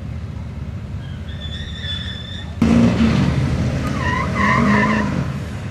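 Diesel pickup truck suddenly revving hard, with its tires squealing and spinning on the track about two seconds after the engine opens up, as in a burnout at the start line.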